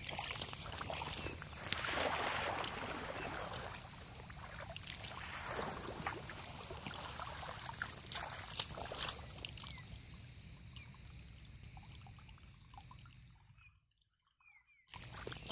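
Shallow pond water splashing and sloshing as a hand-held scoop net is swept through it and a person wades in rubber boots, in several uneven surges, the loudest about two seconds in. The sound almost cuts out for about a second near the end.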